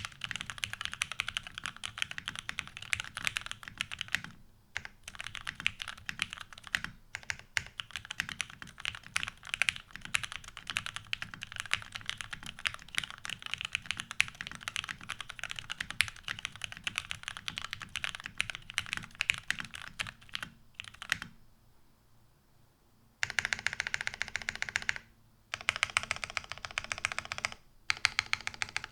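Typing on an OTD 360C keyboard with lubed vintage Cherry MX Black linear switches on a top-mounted aluminum plate, capped with Cherry G81-3100 keycaps: a fast, steady run of keystrokes. After a pause of about two seconds, the typing comes back louder in short bursts.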